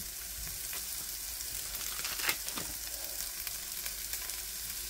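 Ground sausage sizzling in hot oil with diced onions in a stone-coated frying pan, with scattered clicks and scrapes of a utensil breaking up the meat. One louder scrape comes about two seconds in.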